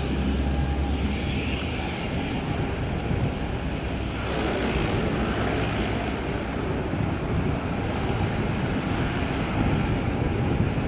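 Bombardier CL-415 water bomber's two Pratt & Whitney Canada PW123AF turboprop engines running steadily at taxi power, propellers turning, as the aircraft rolls past.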